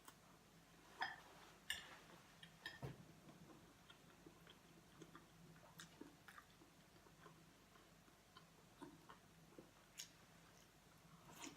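Quiet eating sounds: soft chewing with scattered light clicks and taps, the loudest about a second in and near two and three seconds.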